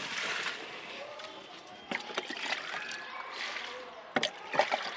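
Diluted jeevamrutham liquid manure sloshing and splashing as it is poured onto potted plants. A few sharp knocks, two close together near the end.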